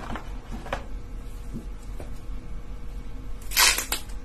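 Handling of a new smartphone and its plastic packaging: light taps and rustles, then a short, loud crinkle of plastic about three and a half seconds in.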